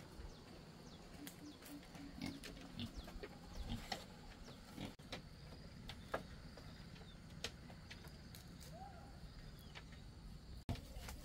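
Quiet farmyard sounds: scattered small clicks and knocks with a few short bird chirps over a low steady background.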